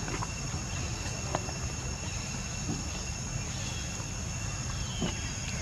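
Insects shrilling steadily in several unchanging high tones over a low background rumble, with a few faint clicks.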